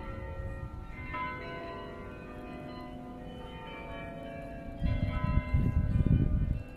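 Tower bells ringing, several different pitches struck one after another and left to ring on. From about five seconds in, a loud low rumble sounds under them.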